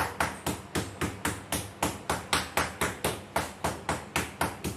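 Rapid, evenly spaced strikes, about four a second, each a sharp knock, like hammering or chopping.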